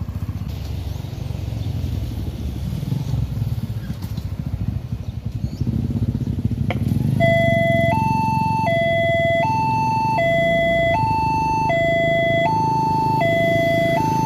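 Motorcycle engines running close by, then about seven seconds in, after a click, a railway level-crossing warning alarm switches on. This is the crossing's newly fitted electronic alarm, sounding a two-tone pattern that steps steadily back and forth between a lower and a higher tone, warning that a train is approaching.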